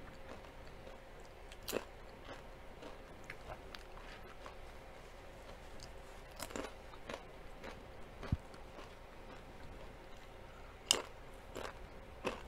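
A person chewing crunchy food with mouth and teeth sounds, with a few sharp crisp crunches; the loudest comes near the end.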